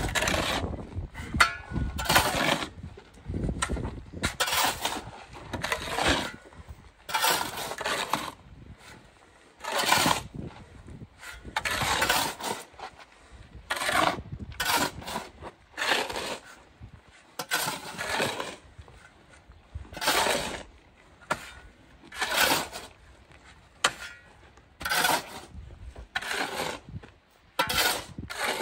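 Repeated gritty scraping strokes, about one every one to two seconds, from hand tools working concrete.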